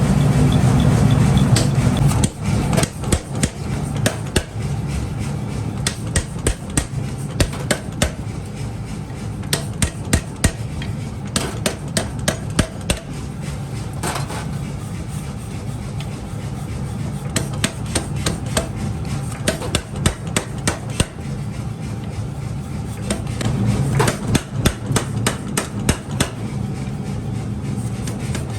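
Hammer blows striking metal in irregular runs of quick strikes, over a steady low machine hum that is loudest in the first two seconds.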